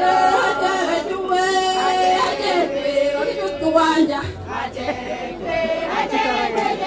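A group of women singing together as a choir, with long held and gliding notes.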